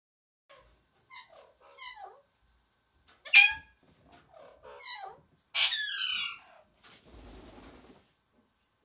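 Alexandrine parakeet mimicking a cat's meow several times, a string of short cat-like calls, the loudest about three and a half seconds in and a longer falling one near six seconds. About a second of rustling follows near the end.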